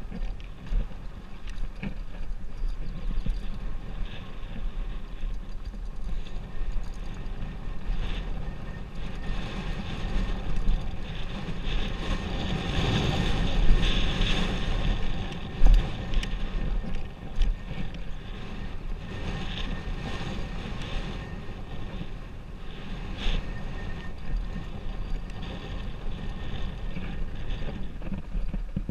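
Wind rushing over the camera microphone on a fast mountain bike descent, with the tyres rolling over loose dirt and frequent clicks and knocks of the bike rattling over bumps. It is loudest midway, with a sharp knock a little past the middle.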